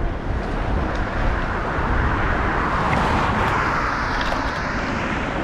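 Wind rushing over the camera's microphone as a mountain bike rolls fast along a dirt trail, with a steady low rumble from the tyres. The rush grows a little louder about two seconds in, and a few small rattles come through near the middle.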